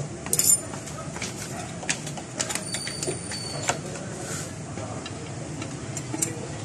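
Light metallic clicks and clinks of clutch plates and linings being handled and fitted into a motorcycle's clutch housing, with a sharper clatter about half a second in.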